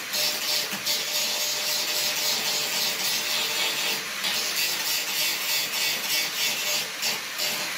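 Grinder grinding down spot welds on the car's sheet-metal trunk panel: a continuous harsh, hissing abrasive sound that swells and eases a little as the pressure changes.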